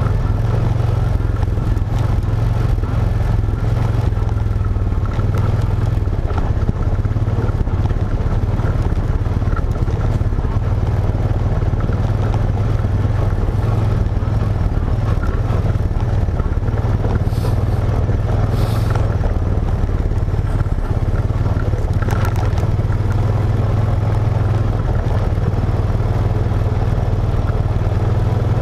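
ATV engine running at a steady trail speed, an even low drone, with a few brief clicks and rattles around the middle.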